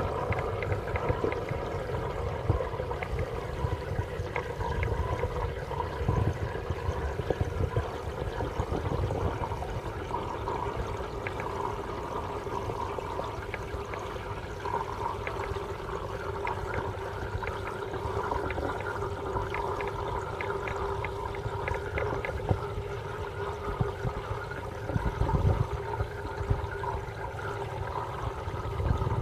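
Aquarium water circulating and trickling steadily, with a steady hum beneath and small scattered ticks.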